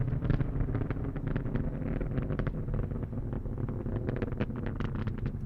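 Space Shuttle Atlantis's rocket exhaust during ascent: a deep, steady rumble with rapid, irregular crackling from the solid rocket boosters and main engines.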